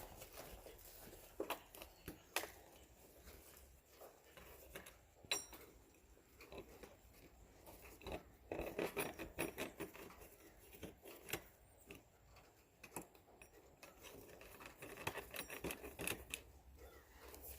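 Small clicks and light metal rattles of deadbolt hardware being handled, with single sharp clicks in the first few seconds and runs of quick ticks about nine seconds in and again near the end.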